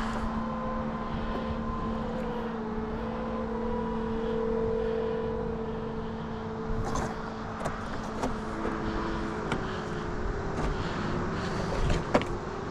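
Steady drone of a distant motor whose pitch slides slowly lower partway through, with a few sharp clicks near the end.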